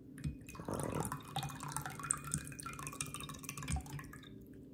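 Liquid gurgling and dripping as a tipped stainless steel bottle pours, with a patter of small irregular splashes that dies down near the end.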